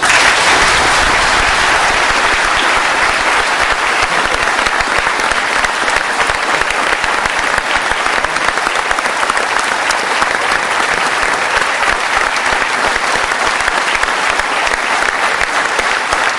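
A large audience applauding, breaking out all at once and then continuing as steady, sustained clapping.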